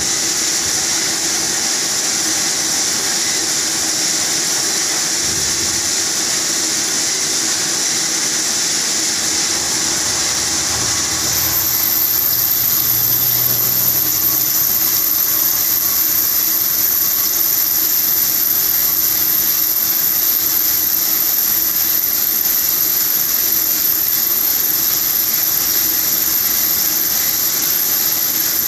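Vertical machining centre cutting a borewell drill bit part: the spindle runs steadily under a flood of coolant that hisses and splashes. About eleven seconds in, a very high-pitched whine starts, holds, and the noise gets a little louder.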